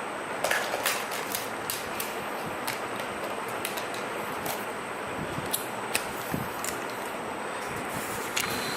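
Scattered small clicks and taps from small hard objects being handled on a workbench, over a steady hiss.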